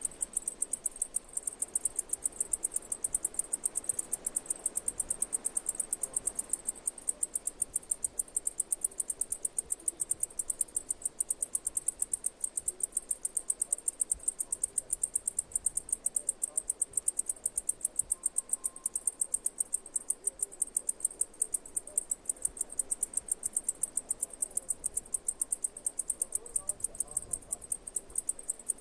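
Cicadas chirping: a steady, even train of high-pitched pulses, about five a second.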